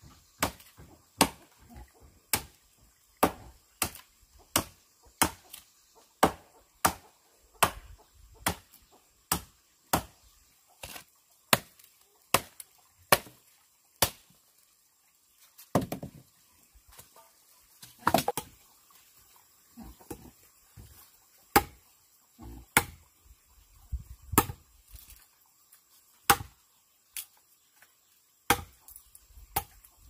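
Repeated chopping, a blade striking wood about once or twice a second, with a brief pause midway and a less even rhythm in the second half.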